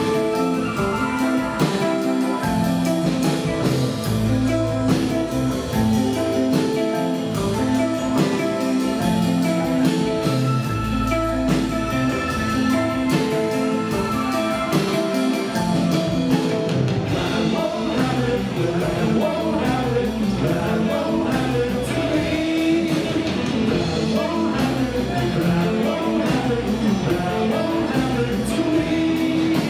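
A live rock band playing: electric guitars, keyboard and drum kit, with held chords over the first half and a wavering, bending lead line over the second half.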